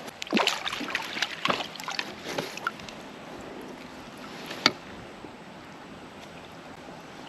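Water splashing and knocking against a fishing raft, with a quick run of clicks and splashes over the first three seconds and one sharp click a little past the middle, then a steady wash of creek water.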